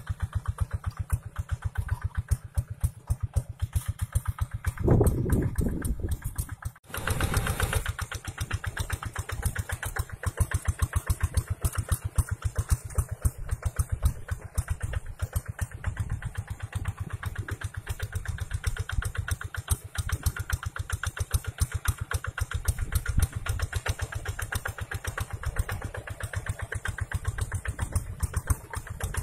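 Two-wheel hand tractor's single-cylinder diesel engine running under load as it pulls a plough through dry field soil, a rapid, even chugging. It swells louder briefly about five seconds in, then drops out for a moment near seven seconds.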